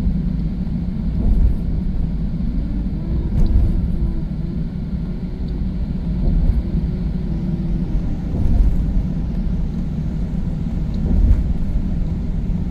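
Car driving along, a steady low rumble of road and engine noise.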